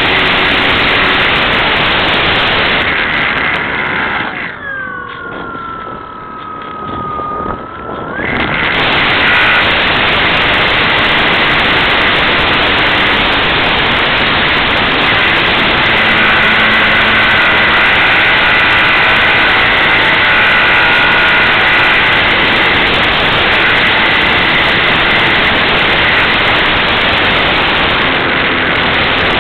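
Wind buffeting the microphone as a loud steady rush. It eases for a few seconds about four seconds in, and the high whine of the Skyartec Cessna 182 model plane's electric motor comes through, falling slowly in pitch.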